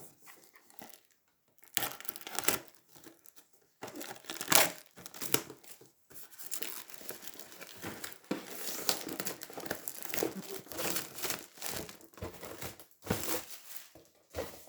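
Plastic packaging crinkling and tearing in irregular bursts, nearly continuous in the middle: shrink-wrap being torn off a box and crumpled as it is opened.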